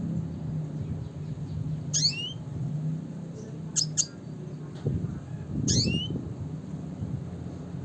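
Red siskin calling: two drawn-out calls that sweep down in pitch and hook back up, about two seconds and six seconds in, with a quick pair of sharp chips between them. A steady low rumble runs underneath.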